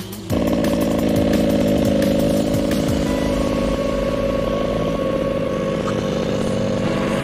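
Small two-stroke petrol engine of a 1/5-scale RC truck, running steadily with a buzzing, chainsaw-like note. It cuts in abruptly just after the start.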